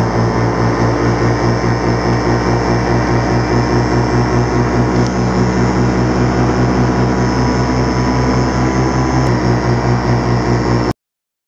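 Paramotor's two-stroke engine and propeller running steadily in flight: a loud, even drone with a regular pulsing beat. The sound cuts off abruptly near the end.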